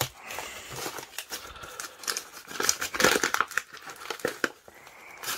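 Brown wrapping paper crinkling and rustling as hands pull it off a small cardboard box, in irregular crackles that are thickest around the middle.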